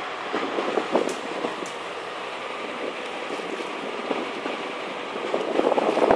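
Steady noise of a fishing boat, its engine and the water along the hull, with louder irregular crackling patches about half a second in and again near the end.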